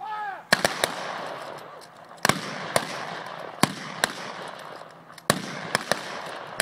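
A brief shouted word of command, then a ragged string of about ten shots from .303 Lee-Enfield rifles fired by a section of soldiers, at uneven intervals and in clusters. Each shot trails off into a long echo.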